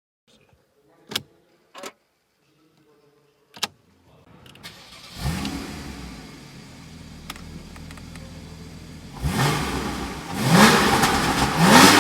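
A few sharp clicks, then a car engine is started about five seconds in, flaring up as it catches and settling to idle. It is then revved three times near the end, each rev rising in pitch, the last the loudest.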